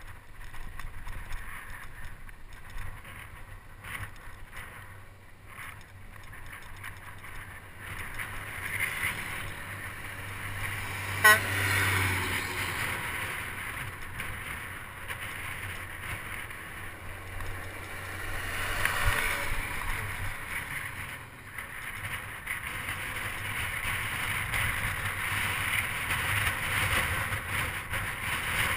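Wind and tyre noise from riding a bicycle on asphalt, with passing motor traffic swelling and fading twice. There is one sharp knock about eleven seconds in.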